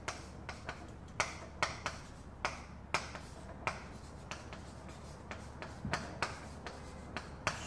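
Chalk tapping and scratching on a chalkboard in short, irregular strokes as characters are written: a string of sharp clicks, several a second.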